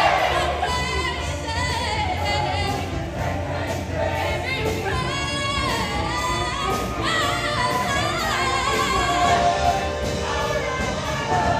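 Mixed show choir of boys and girls singing together over amplified music with a steady bass, voices sliding between held notes.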